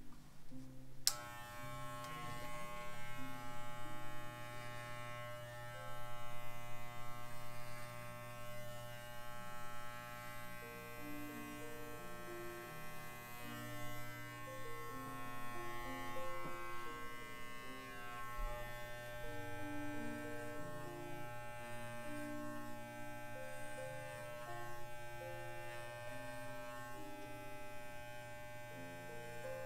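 Corded electric dog hair clippers switch on about a second in and run with a steady buzz while clipping the fur on a miniature schnauzer's head. Music plays faintly underneath.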